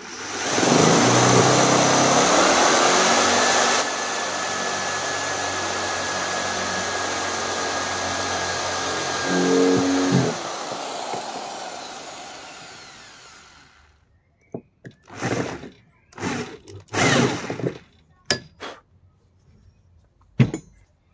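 Electric drill with a 10 mm metal twist bit boring through an oak dowel, the motor running steadily under load with a whine for about ten seconds before stopping. A series of sharp knocks follows near the end.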